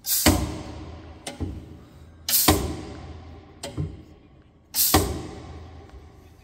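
Pneumatic clamps on a Schüco LKF 2600 copy router blowing off air: three sudden loud hisses about two and a half seconds apart, each fading over a second or two, with a softer knock between them.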